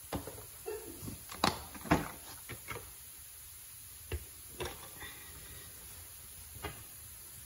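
Irregular light knocks and clicks, a dozen or so, bunched in the first few seconds with the two loudest close together about a second and a half in, then a few sparser ones later.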